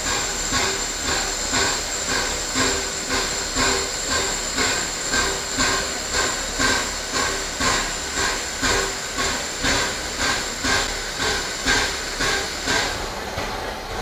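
Peppercorn A1 Pacific steam locomotive 60163 Tornado hissing steam, with a steady pulsing beat about twice a second and a thin high whine that fades near the end.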